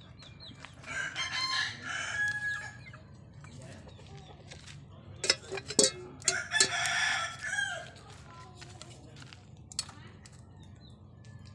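A rooster crowing twice, each crow lasting about two seconds, with the second coming about five seconds after the first. A few sharp knocks come just before and during the second crow.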